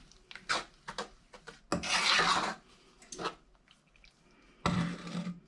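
Stirring a sugar, butter and evaporated-milk mixture in a saucepan: a utensil scraping around the bottom of the pan in short rasping strokes, with two longer, louder scrapes, one about two seconds in and one near the end.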